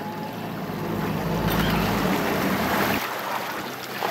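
Wind and sea-water noise on a small fishing boat over a low steady hum from the Suzuki outboard motor. The low rumble drops off abruptly about three seconds in.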